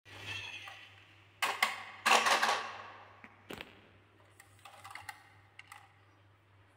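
Handmade wooden toy truck being handled and pushed across a hard floor: a few sharp knocks, then a burst of wooden clattering about two seconds in, a single knock, and scattered light ticks. A faint steady low hum underneath.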